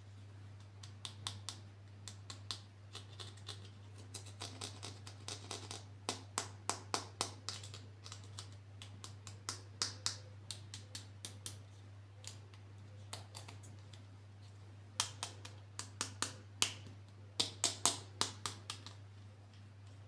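Irregular sharp clicks and taps of hard plastic toy parts and packaging being handled, some in quick runs of several a second, with a pause a little past the middle. A steady low hum lies underneath.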